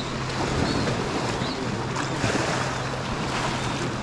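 Small waves washing over a pebble shore strewn with ice floes, with wind on the microphone. A steady low hum runs underneath, and a few faint, short, high bird chirps come through.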